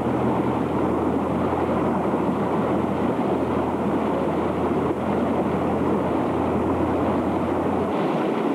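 Floodwater of the swollen Malom stream rushing through a village street: a loud, steady rush of water, with a low hum underneath that stops near the end.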